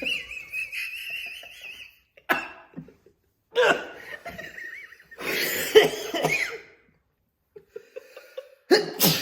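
A person coughing in several separate bouts, mixed with laughter, after sniffing spicy chili-lime seasoning up the nose; the irritant powder sets off the coughing. It opens with a high, wavering vocal sound lasting about two seconds.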